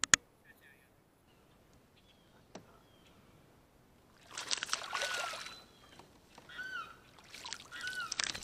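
A sharp click at the very start. From about four seconds in, repeated bursts of splashing as a hooked bass thrashes at the surface and is lifted out of the water, loudest near the end.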